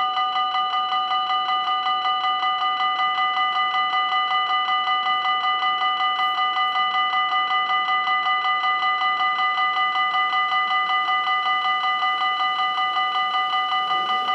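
Level-crossing warning bell ringing: an electronic bell repeating rapidly and evenly, a ringing of several steady tones, sounding while the red lights flash to warn that a train is coming and the barriers are about to lower.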